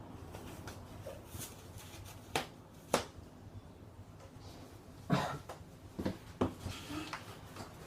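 Scattered sharp clicks and knocks over a faint low hum: two single clicks about two and three seconds in, then a cluster of several from about five seconds on.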